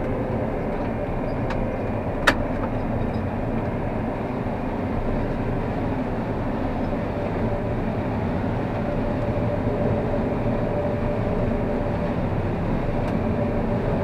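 Combine harvester running with its corn head and threshing machinery engaged, harvesting corn, heard from inside the cab as a steady drone with a faint whine. A single sharp click sounds about two seconds in.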